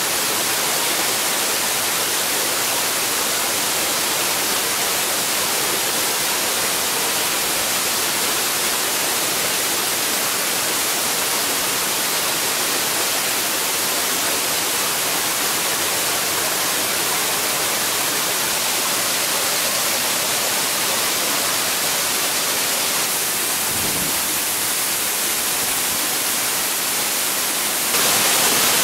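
Steady, even rushing of falling water, a little louder near the end.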